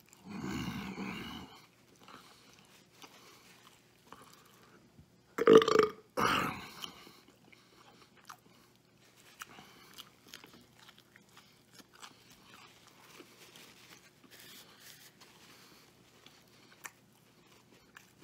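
A man chewing mouthfuls of burger, with faint wet mouth clicks throughout, and two loud burps in quick succession about five and a half seconds in. A shorter rough, breathy burst comes right at the start.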